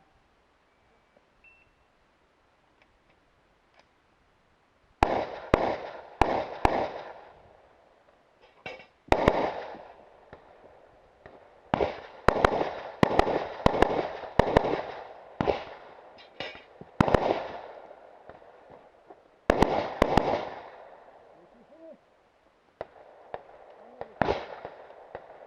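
Rifle shots fired in quick pairs and short strings, each followed by a fading echo, with short pauses between strings. There are about two dozen shots in all, and they begin after about five quiet seconds.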